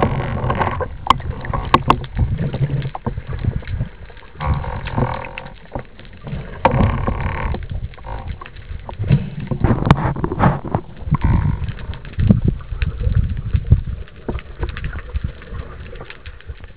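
Muffled underwater water noise: an uneven low rumble of water sloshing and rushing past the submerged camera, with bubbles and scattered clicks and knocks, rising in swells every second or two.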